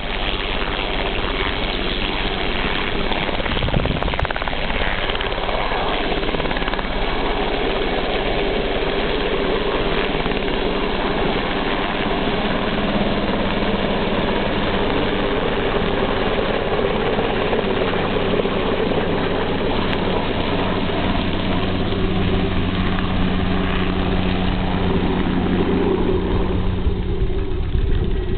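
Aérospatiale Lama helicopter's turboshaft engine and rotor running steadily, a continuous loud drone with no pauses.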